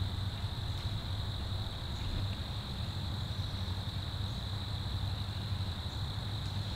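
A steady, unbroken high-pitched insect chorus, such as crickets or katydids, over a low rumble of wind on the microphone.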